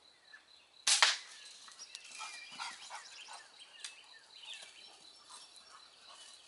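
A single sharp crack from a pellet gun (air rifle) firing, about a second in, followed by birds chirping.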